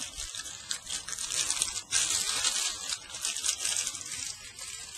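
Clear plastic bag rustling and crinkling as it is handled, an uneven crackly rustle that rises and falls.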